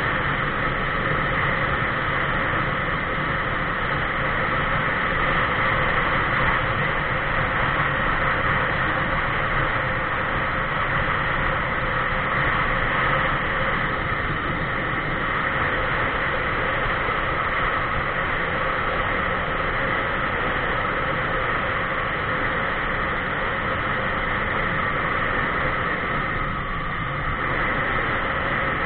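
Steady rush of wind and tyre noise on asphalt, picked up by a camera mounted on a vehicle moving at highway speed, with a constant drone underneath.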